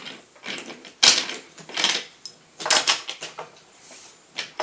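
Clattering and knocking of toy train pieces and track being handled, in a few short bursts about a second apart.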